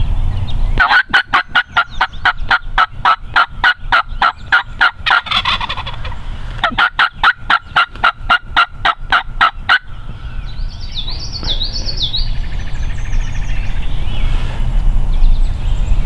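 Turkey calling in two long runs of sharp, rapid clucks, about five a second, each run lasting three to four seconds. A songbird sings briefly after them.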